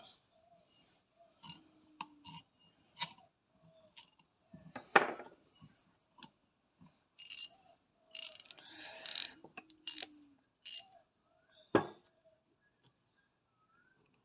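Freshly cleaned and greased Minimax ratchet being worked and handled: irregular metallic clicks and clinks, a rasping run of ratchet clicks about eight seconds in, and two sharper knocks about five and twelve seconds in.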